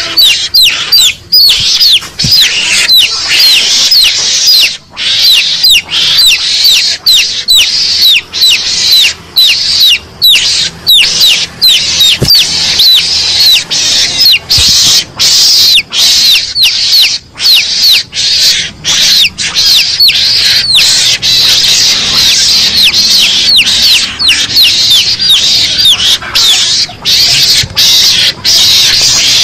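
Mongoose lure call (pikat garangan) played loud: rapid high, squeaky chirps, each falling in pitch, several a second, with short gaps between runs.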